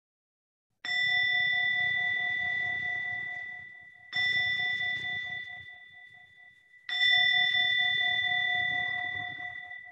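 A meditation bell struck three times, each strike ringing out and fading before the next, with a lower tone that pulses as it dies away. The bell closes the meditation.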